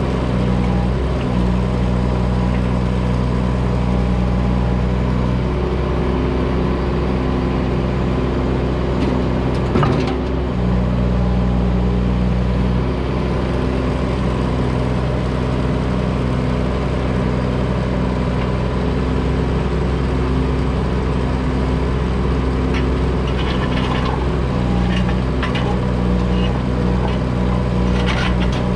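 Kubota U17 mini excavator's three-cylinder diesel engine running steadily, its note shifting several times as the hydraulics take load. One sharp knock comes about ten seconds in, and a scatter of clinks and scrapes near the end as broken concrete slab pieces are worked.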